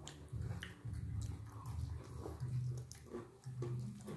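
Close-miked chewing and wet mouth sounds of people eating rice and fried chicken with their hands, with scattered soft clicks and smacks.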